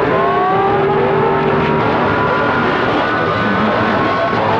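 CB radio receive audio on channel 6: a loud hiss of static with several overlapping whistling tones gliding slowly upward, the heterodynes of other stations' carriers on the channel. A steady lower tone fades out about halfway.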